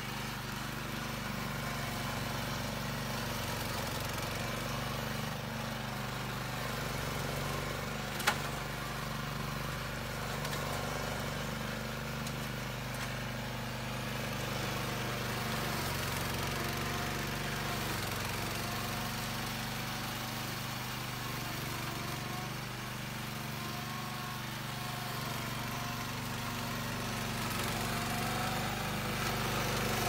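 Remote-controlled weed mower's small petrol engine running steadily under load as the cutter chops through dense tall weeds. A single sharp click sounds about eight seconds in.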